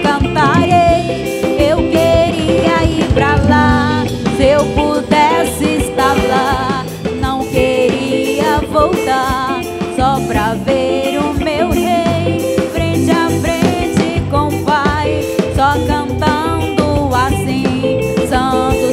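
A band playing gospel music, with drum kit and a sung or played lead melody with vibrato over the accompaniment.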